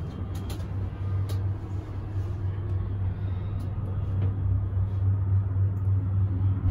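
Steady low drone inside a moving cable car gondola cabin, with a few faint ticks about a second in.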